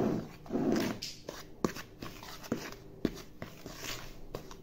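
Spatula stirring dry flour in a plastic mixing bowl: soft scraping and rustling with scattered light knocks of the spatula against the bowl. There are two soft muffled sounds in the first second.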